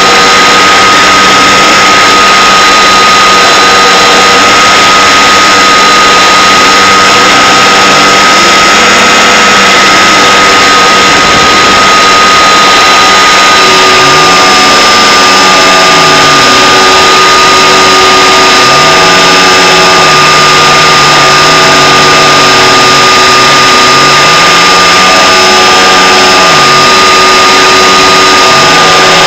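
Electric motor and spinning propeller of an RC motor glider under power, picked up loud by the onboard camera's microphone: a steady high whine over a rush of air noise.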